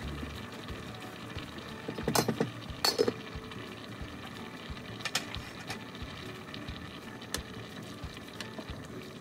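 A pot lid clatters and clinks onto a cooking pot about two seconds in, with a second, louder clink a moment later. A few light knocks follow. Under it all is the steady hiss of a saucepan of black sticky rice boiling on a gas burner.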